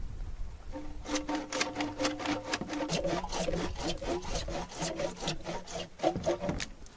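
Plastic PVC pipe being worked by hand: rapid rubbing strokes, several a second, with a squeaky tone, starting about a second in.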